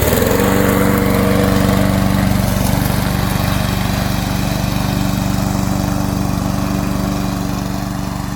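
Loncin 224 cc single-cylinder four-stroke petrol engine on a remote-control lawn mower catching from an electric start right at the beginning, then running steadily.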